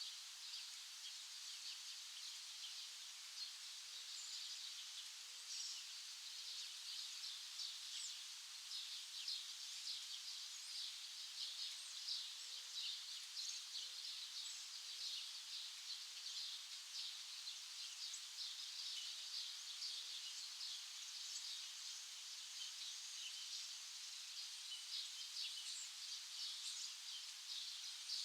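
Many small birds chirping in a dense, continuous high-pitched chorus. A faint, short, low note repeats every second or so underneath.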